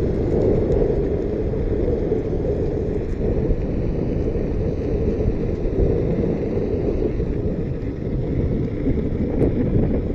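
Steady rumbling wind buffeting on the microphone of a rider moving on an Inmotion V10F electric unicycle, with a few faint ticks near the end.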